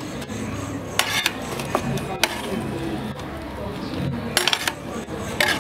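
Metal spoon clinking and scraping against an aluminium cooking pot as leafy greens are stirred and pressed down, with sharp clinks about a second in, again at about two seconds, and a cluster of clinks near the end.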